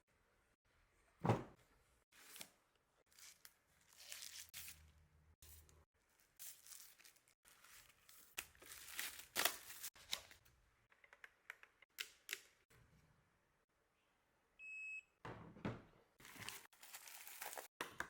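Packaging being handled and opened: scattered rustling, crinkling and tearing of plastic and cardboard with a few knocks, including a thunk about a second in. About 15 seconds in, a single short electronic beep sounds.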